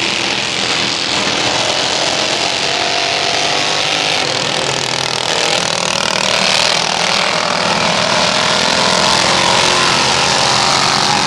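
Several racing lawn mowers' small engines running at high revs around a dirt oval, a steady loud engine noise that grows a little louder in the second half as the mowers pass close by.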